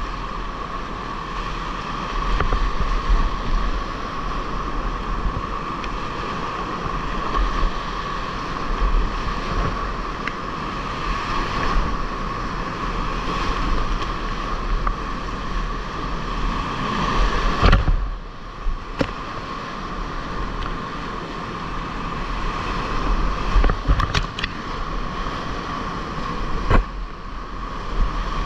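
Heavy whitewater rapids rushing around a kayak, with water splashing over the boat and onto the camera. A few sharp knocks and splashes cut through, two-thirds of the way in and again near the end.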